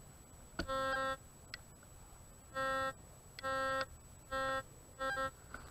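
Metal detector sounding its target tone five times, each about half a second long and at the same low pitch, as the search coil is swept back and forth over a buried metal target.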